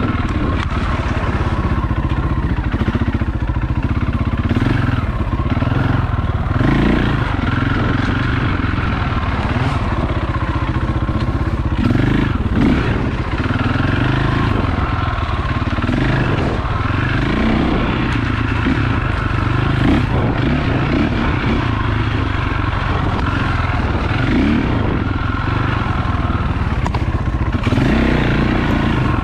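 Enduro dirt bike engine running as the bike is ridden slowly along a rough wooded trail, the revs rising and falling unevenly with the throttle. Occasional clattering from the bike jolting over the ground.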